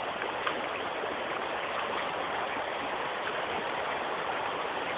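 Steady rush of shallow water flowing over white travertine terraces.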